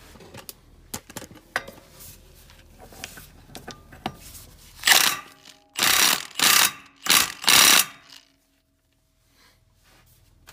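Brushless cordless impact wrench in about five short, loud bursts, tightening the left-hand-thread retaining nut of a UTV's primary clutch through a 32 mm socket. A few light clicks come before the bursts.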